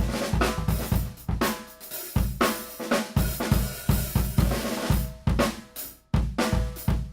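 Drum kit played in a groove, led by a Mapex Armory Peacemaker snare drum with a maple/walnut shell, tuned high, with its ringing crack over kick drum and hi-hat and cymbals. The beat breaks off briefly about six seconds in, then picks up again.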